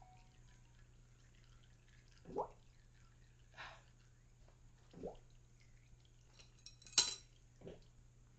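Hydraulic fluid dripping from the backhoe frame's open drain, single drops falling every two and a half seconds or so. A sharp click about seven seconds in is the loudest sound.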